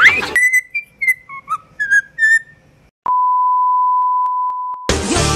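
The end of a shrill scream rising in pitch, then a string of about six short, whistled, bird-like chirps at different pitches, then a steady one-tone electronic bleep held for almost two seconds. A woman's singing voice with music cuts in near the end.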